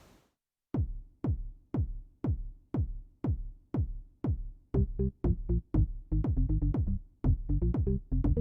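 Electronic dance beat from the Roland GO:KEYS 61 keyboard's Loop Mix function: a kick drum on every beat, about two a second, starting just under a second in. A bass line joins about halfway through, and lighter percussion hits fill in near the end.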